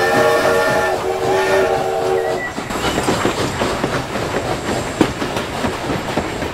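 Train horn blowing two chord blasts, the second longer, followed by the rhythmic clickety-clack of train wheels running over rail joints.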